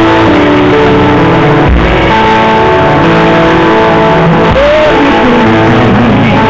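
Loud live worship music with guitar: held chords that change every second or two, with a few brief sliding notes.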